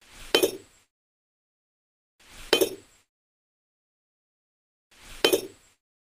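Three identical short clinks about two and a half seconds apart, each a quick rising swish ending in a sharp click, with dead silence between: an added clink sound effect matching miniature bricks being set in place.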